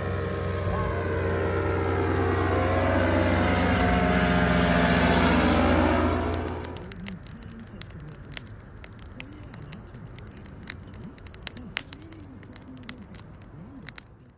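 Powered parachute's engine and propeller droning as it flies past, growing louder with the pitch sliding, then cutting off about six seconds in. After that comes a campfire crackling with scattered sharp pops.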